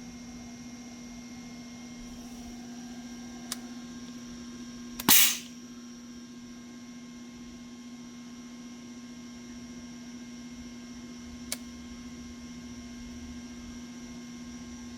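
Haas TR160 trunnion rotary table running with a steady, quiet hum. About five seconds in comes one loud, sharp clack, and there are two light clicks, one before it and one later.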